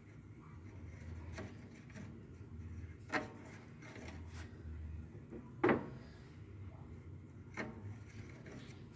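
Four light clicks and knocks, about two seconds apart, the second and third the loudest, as parts of a washing machine are handled during lubrication, over a low steady hum.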